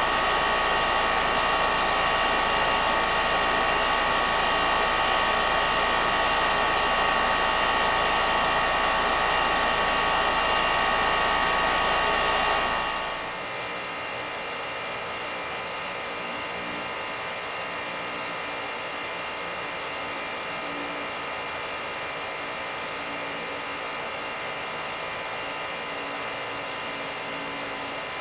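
Newly installed 4-ton Rheem R-410A air-conditioning condenser running: a steady rush of fan and compressor noise with several steady tones in it, dropping to a quieter, duller level about 13 seconds in.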